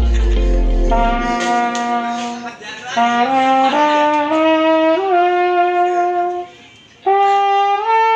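Concorde marching mellophone played, holding one note after another in a slow upward scale, with two short breaks for breath. A deep electronic bass from background music fades out about a second in.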